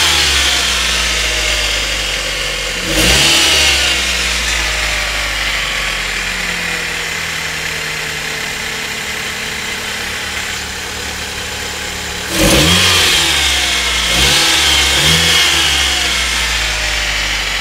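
Mitsubishi 4G92 MIVEC 1.6-litre four-cylinder engine idling, blipped up in revs and back down briefly about three seconds in and again near twelve seconds, with a couple of smaller blips after. The owner reports a ticking from this engine on cold starts that goes away after 10–15 minutes of running.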